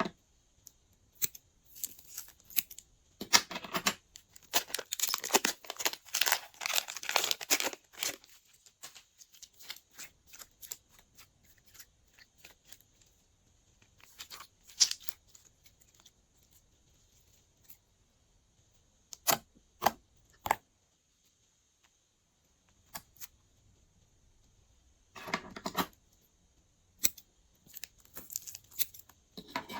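Glossy slime being worked by hand, giving bursts of sticky crackling and clicking pops. There are several clusters with quiet gaps between them; the longest runs a few seconds.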